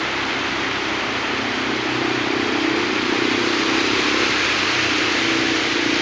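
Engines of cars and motorcycles running at low speed as they wade through a flooded street, over a steady hiss of water.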